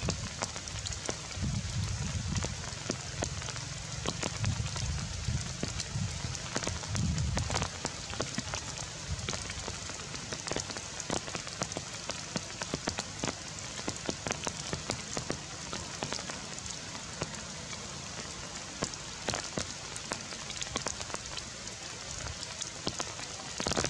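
Steady rain falling on forest foliage: an even hiss dotted with many sharp ticks of single drops. A low rumble sits under it for the first seven or eight seconds.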